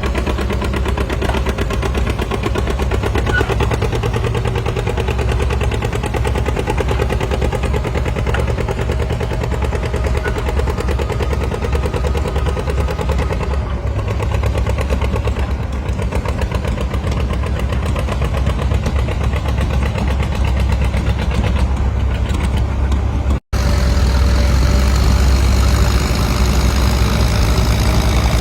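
Antique farm tractor engine running loudly with a rapid, even firing beat. There is a sudden break about 23 seconds in, after which a tractor engine runs a little louder.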